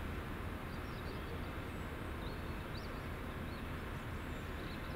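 Steady low background rumble of outdoor railway-station ambience, with a few faint, short, high bird chirps.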